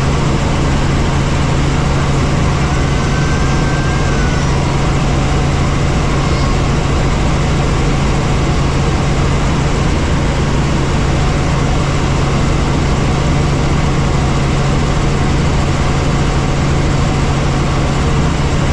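Steady drone of a helicopter's engine and rotors heard inside the cabin, with a strong low hum that holds constant throughout.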